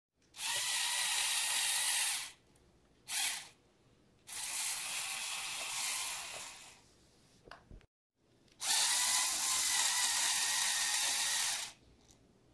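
Lego Technic XL motor driving a four-wheel-drive crawler through its plastic gears: a steady high-pitched whirring in four runs, about two seconds, then a short half-second burst, then two and a half seconds, then three seconds, stopping sharply between them.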